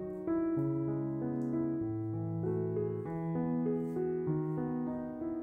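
Background piano music: a slow melody of held notes, changing about once a second.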